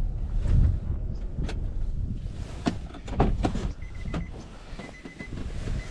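Scattered clicks, knocks and rustling of a camera being handled inside a car with its door open, over a low rumble. A faint, thin, high beeping tone comes and goes in the second half.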